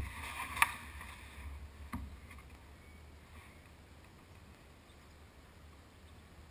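Clicks and knocks of a hand handling a GoPro camera, the sharpest about half a second in and another about two seconds in, over a faint low rumble that dies away to a faint hiss.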